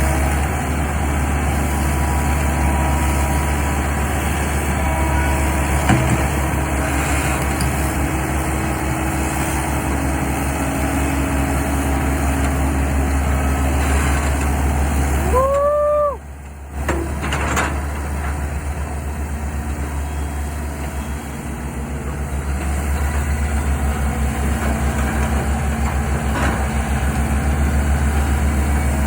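Sumitomo hydraulic excavator's diesel engine running steadily, with a brief drop in sound about halfway through, marked by a short tone that rises and falls.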